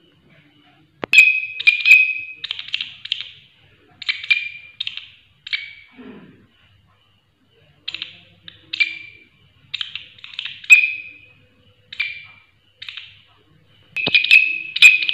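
Large green leaf-winged katydid (walang kerik) stridulating: a run of short, loud rasping chirps, each under half a second, coming in irregular groups with a pause in the middle and growing dense again near the end. A sharp click comes just before the chirping starts.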